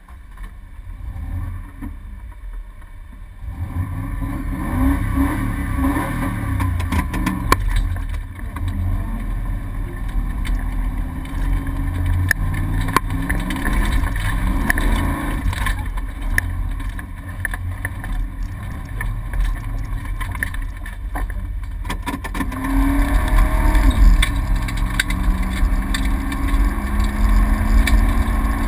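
A rally car's engine heard from inside the cabin, pulling away and revving up and down through the gears on a gravel track, with many short knocks and clatters from the car over the rough surface.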